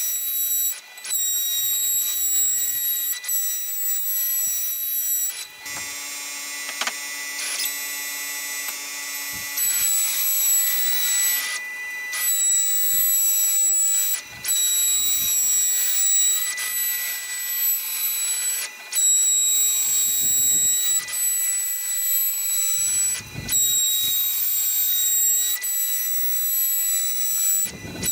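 CNC router spindle running, a steady high-pitched whine broken by several short gaps. From about six to eleven and a half seconds a lower hum made of several steady tones takes over.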